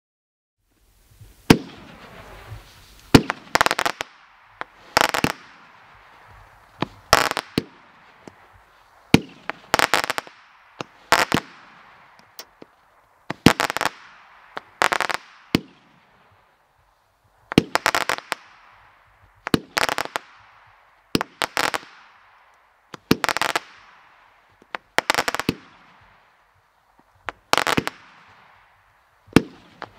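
Cutting Edge Veterans Tribute 500-gram consumer fireworks cake firing shot after shot, starting about a second in: each shot is a sharp report followed by a quick cluster of cracks, about one every two seconds.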